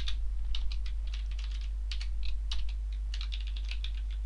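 Typing on a computer keyboard: a run of quick, irregular key clicks. A steady low hum runs underneath.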